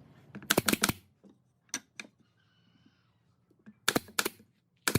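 Sharp clicks and taps in quick clusters, a few near the start and a few near the end, with two single clicks between.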